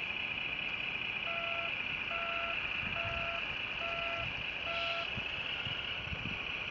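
Reversing alarm of a CAT 963B RC model track loader's sound module beeping five times, a little under one a second, as the loader backs away from the dump truck, over a steady high-pitched whine.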